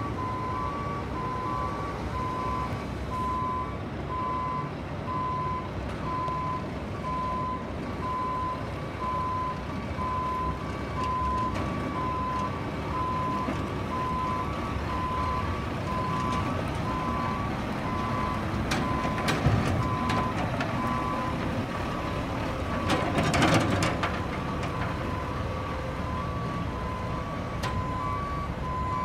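Truck reversing alarm beeping steadily, about two beeps a second, over the diesel engine of a Mack RD690S cement mixer truck running as it drives across the yard. Near the end comes a brief loud rush of hiss.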